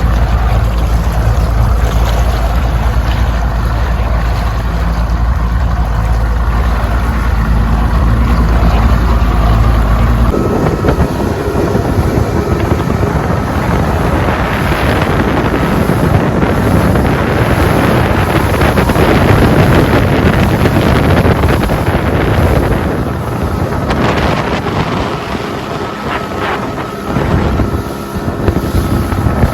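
A small skiff's outboard motor running at speed, with wind on the microphone. About ten seconds in, the steady low engine drone gives way abruptly to louder rushing wind noise.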